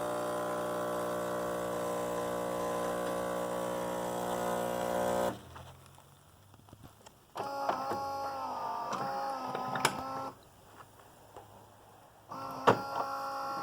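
Saeco Xelsis super-automatic espresso machine running with a steady hum for about five seconds, then stopping abruptly. After a short lull come two quieter pitched whirs that waver in pitch, with a few clicks.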